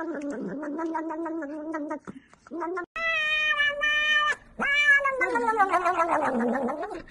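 Domestic cats meowing: a long, steady meow, a short one, then two loud, drawn-out yowls, the last one sliding down in pitch.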